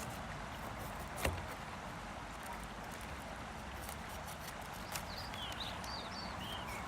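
Outdoor ambience: steady background noise, with a sharp click about a second in and a smaller one around five seconds. Small birds chirp in quick, short calls near the end.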